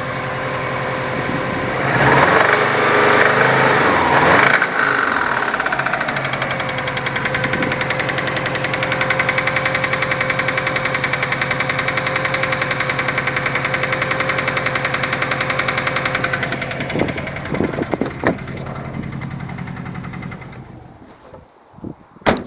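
Subaru Impreza RB5's turbocharged flat-four engine running with a rapid, even knock from inside the engine. It is revved briefly a couple of seconds in, then settles, knocking steadily, and dies away near the end, followed by a single click.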